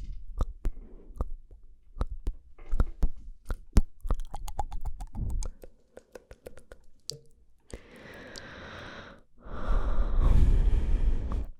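Close-miked ASMR mouth sounds: a string of wet tongue and lip clicks and smacks for about the first seven seconds, then two long breathy rushes of air close to the microphone, the second one louder.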